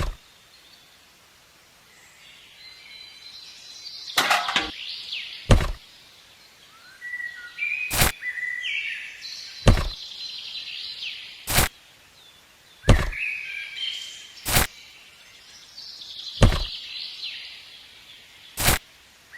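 Birds chirping, broken by about ten sharp knocks, one every second or two.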